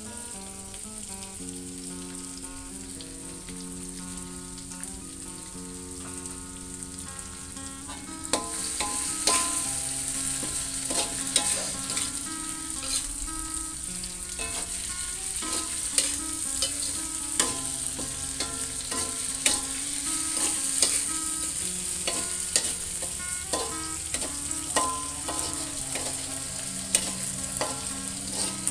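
Spice paste with palm sugar sizzling in a metal wok, quietly at first. From about eight seconds in the sizzling gets louder, and a metal spatula scrapes and knocks against the wok as the paste is stirred.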